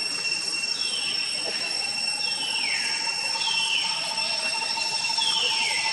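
Steady high-pitched drone of forest insects, with four descending whistled calls about a second and a half apart.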